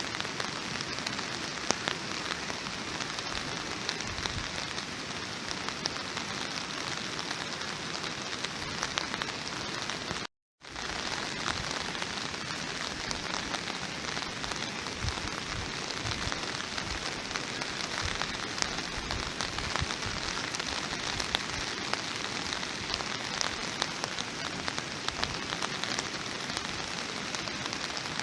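Steady rain falling, with many individual drops ticking through the hiss. The sound drops out to dead silence for about half a second roughly ten seconds in, then resumes unchanged.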